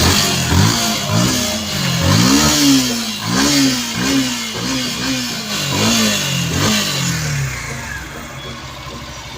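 Yamaha FZ-S motorcycle's single-cylinder engine being blipped on the throttle about nine times in quick succession, each rev rising and falling, then settling to a steady idle near the end.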